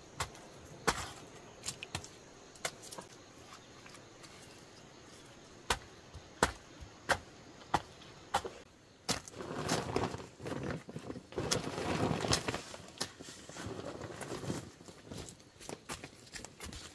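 Irregular sharp knocks and clatter, several seconds apart at first and then crowding together. A rougher rustling or scraping stretch fills the middle.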